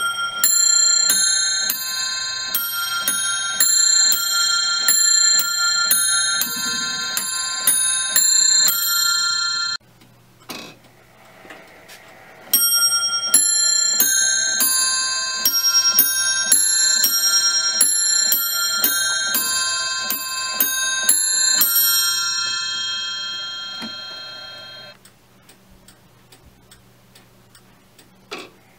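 Automaton clock's quarter chime: a wizard figure's hammer strikes a nest of four bells, a quick run of ringing notes. The first run cuts off suddenly about ten seconds in, a second starts near thirteen seconds and rings away, and the movement ticks faintly near the end.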